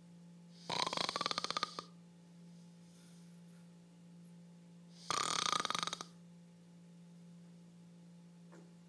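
Loud snoring with a harsh, fast rattle: two snores about four seconds apart, each lasting about a second.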